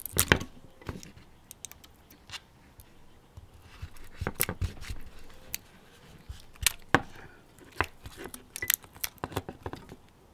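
Small side cutters snipping the nickel strips and wires off a laptop battery pack's 18650 cells, with handling clatter of the cells: irregular sharp clicks and snaps, the loudest right at the start.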